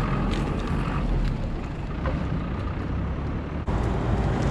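Wind noise on the microphone of a camera riding on a moving bicycle, over steady road and traffic noise. The sound breaks off for an instant about three and a half seconds in.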